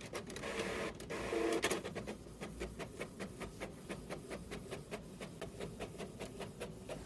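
Inkjet printer printing a page: the print-head carriage shuttling back and forth in a quick, even rhythm of short whirring passes, louder and busier in the first couple of seconds.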